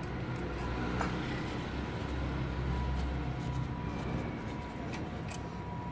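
Steady low rumble of vehicle traffic, with a few faint clicks.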